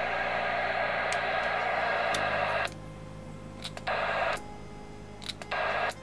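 Yosan CB radio's speaker hissing with static, its squelch switched off. The hiss cuts off suddenly less than three seconds in, then comes back twice in short bursts, with a few sharp clicks between.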